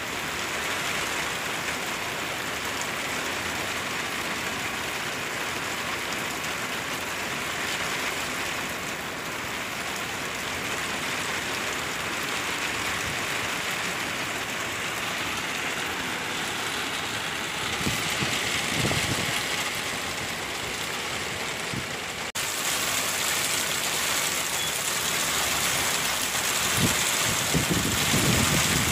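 Heavy rain pouring down, a steady dense hiss of rain on the ground and surfaces. About two-thirds of the way through the sound changes abruptly to a brighter, slightly louder downpour. A car passes on the waterlogged road near the end, adding a low rumble.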